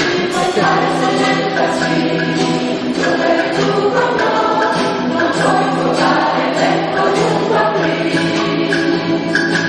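Choir singing a song, holding long notes with short breaks between phrases.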